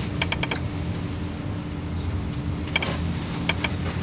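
Light metallic clicks as a steel BTR Stage 2 camshaft is slid by hand into an LS V8 block, its lobes and journals knocking against the cam bearings. There is a quick run of about four clicks just after the start and a few more about three seconds in, over a steady low hum.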